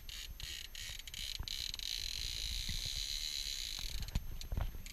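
Fishing reel being cranked while reeling in a fish on a bent rod, a steady raspy whir, over wind rumbling on the microphone, with a few low knocks near the end.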